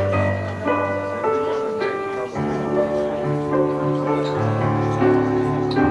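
Piano music: slow held chords over a bass line that moves to a new note a few times.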